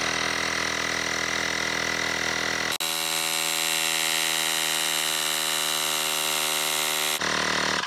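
Xiaomi portable electric air compressor running steadily as it inflates a scooter tyre, with the pressure climbing. Its tone dips and shifts briefly about three seconds in, and it cuts off near the end.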